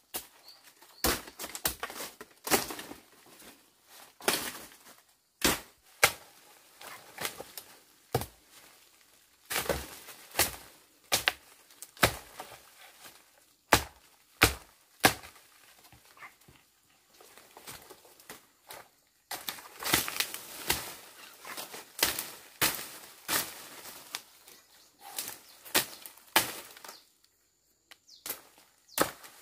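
Repeated chopping strokes of a blade cutting through vegetation while clearing ground for a field. The sharp strikes come irregularly, one or two a second, with a short pause near the end.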